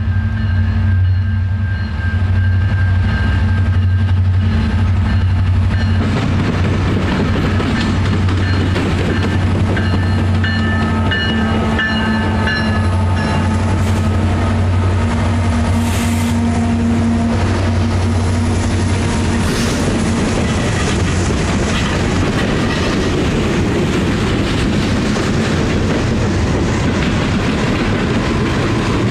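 Canadian National SD70M-2 diesel freight locomotive approaching and passing with a steady low engine drone. About six seconds in, the rumble and clatter of the freight cars' steel wheels on the rails comes up and carries on steadily as the cars roll by.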